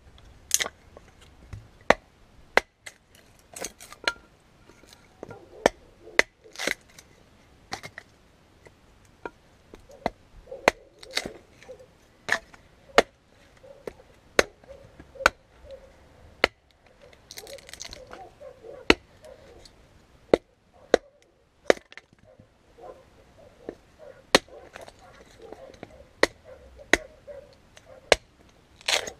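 Restored camping hatchet chopping and splitting kindling on a wooden chopping stump: a long run of sharp strikes of the blade into wood, about one every second.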